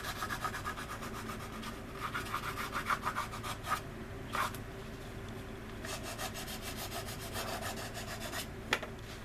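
Hand sanding of a resin scale-model part: quick back-and-forth rubbing strokes in two runs with a quieter pause between, and a few sharp clicks as the part or tool is handled.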